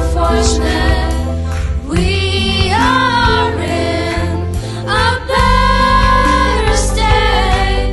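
A song with a steady beat, sung by a group of voices in unison, with held notes around three and six seconds in.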